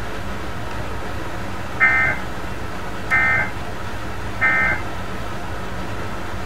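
Emergency Alert System end-of-message tones: three short, identical warbling data bursts of digital code, evenly spaced a little over a second apart, marking the end of the required monthly test. A steady low hum and hiss lies under them.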